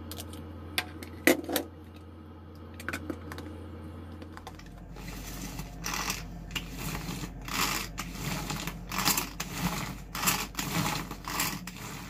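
A few light clicks from a seasoning shaker, then a hand-pulled cord food chopper pulled over and over, a whirring rattle about twice a second as its blades spin through boiled eggs and pickles for tartar sauce.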